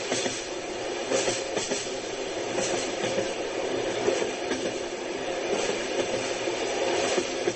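Moving train: a steady rumble and rattle, with an occasional knock of the wheels over the rail joints.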